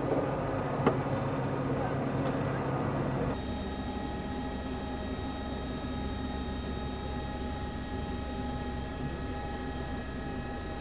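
Steady motor-racing ambience of engine drone. About three seconds in, a sudden cut gives way to a different steady drone of several fixed, unchanging tones. A sharp click comes about a second in.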